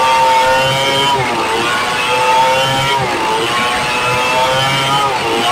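Stihl 070 two-stroke chainsaw running at full throttle while ripping a red meranti log lengthwise. Its engine pitch dips under the load of the cut and recovers, three times, about every two seconds.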